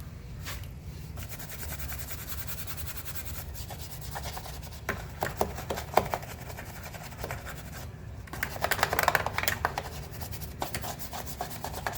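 Scraping and rubbing of scooter CVT parts being scrubbed clean by hand, in quick irregular strokes, loudest in a busy stretch about two-thirds of the way through.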